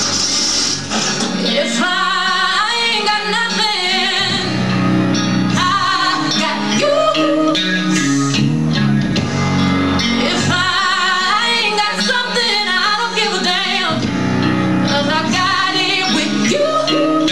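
A song playing: a woman singing over guitar and bass.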